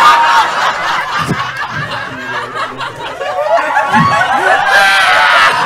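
Audience laughing loudly at a joke's punchline, many overlapping laughs throughout.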